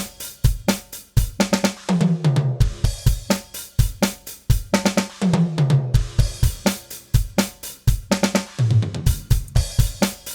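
DrumGizmo virtual drum kit playing back a steady beat of kick, snare, hi-hat and cymbals, with its overhead tracks mixed in to simulate microphone bleed. A pitched drum hit that drops in pitch comes back about every three and a half seconds.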